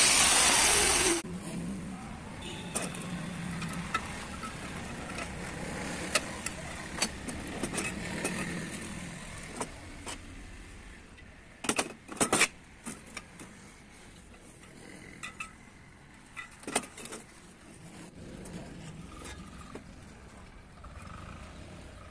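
An angle grinder cutting steel tube stops about a second in. After that come scattered clinks and knocks of cut steel pieces being handled on a steel worktable, the loudest a quick cluster of knocks around the middle.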